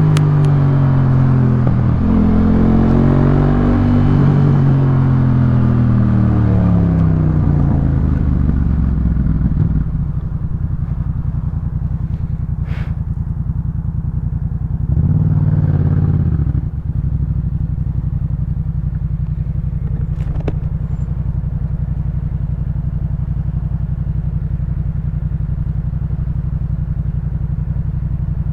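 2018 Yamaha MT-07's parallel-twin engine running through a Jeskap K4 full exhaust. For the first several seconds its pitch falls and rises as the bike slows, then about ten seconds in it settles to a steady idle, with one short throttle blip around the middle.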